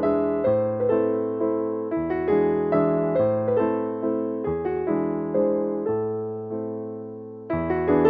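Background piano music: struck notes and chords over a low bass line, one chord left to fade about six seconds in before the playing picks up again near the end.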